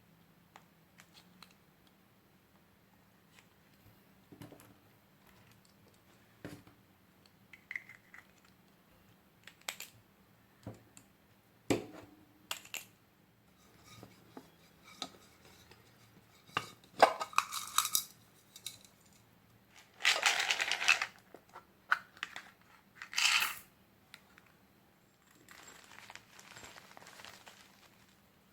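Slime-decorating materials handled on a tabletop: scattered light clicks and taps, then a few louder rustling bursts of about a second each in the second half.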